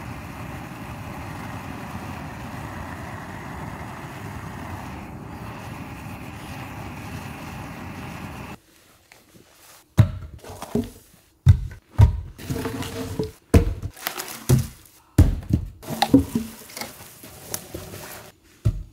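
A steady rushing noise that cuts off suddenly about eight and a half seconds in, then a string of irregular heavy knocks and thuds.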